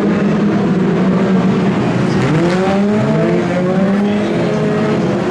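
BriSCA F2 stock car engines racing as a pack goes by, several engines running together, with engines rising in pitch as they accelerate from about two seconds in.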